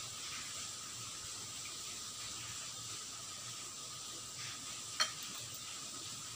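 Steady background hiss with one sharp clink of a metal spoon against a ceramic bowl about five seconds in, as someone eats.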